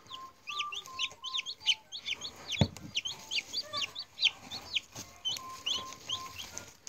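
Newly hatched chicks peeping: many short, high peeps in quick succession, with a single thump about two and a half seconds in.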